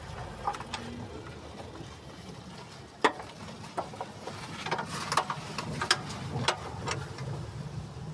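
Scattered clicks and knocks of car parts and hand tools being handled while a part is fitted, with a sharp knock about three seconds in the loudest and a quick run of clicks a little later, over a steady low hum.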